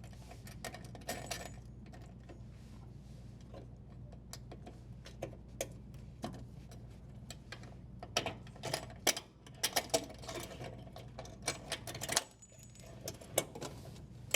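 Light clicks and taps of hand tools and small metal parts as the strain relief nut and power wires are worked free of a dishwasher's electrical junction box, coming thick and fast from about eight seconds in, over a steady low hum.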